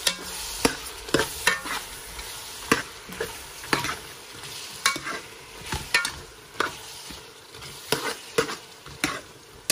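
A metal spoon stirring sliced onions, tomatoes and green chillies frying in oil in a metal pot: a steady sizzle broken by irregular clinks and scrapes of the spoon against the pot.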